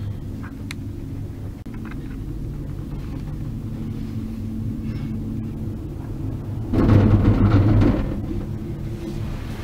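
Gondola lift cabin riding up its cable: a steady low rumble with a constant hum. About seven seconds in, a louder rattling rumble lasts about a second as the cabin runs over a lift tower's roller sheaves.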